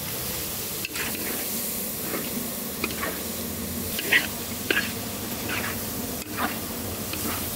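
Goat meat sizzling steadily as it is stir-fried in a huge pot, with several short scrapes and clatters of the stirring tool against the metal.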